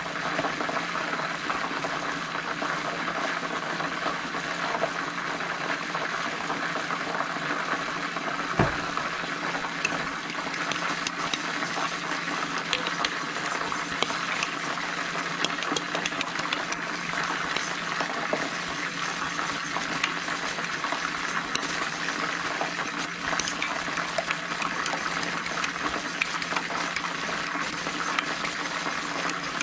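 A spoon stirring a thick hot sauce, honey and seasoning glaze in a bowl, with small clicks and scrapes against the bowl that grow busier after about ten seconds, over a steady sizzle of chicken wings frying in oil. A single sharp knock comes about eight and a half seconds in.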